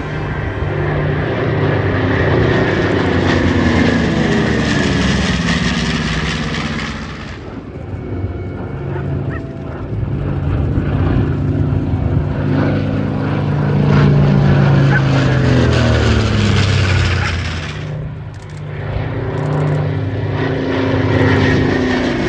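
Piston-engined warbirds of a four-ship formation (B-25 Mitchell, P-38 Lightning, F4U Corsair, P-51D Mustang) flying past. Their engine drone falls in pitch as each pass goes by. It dips briefly twice, about seven and eighteen seconds in.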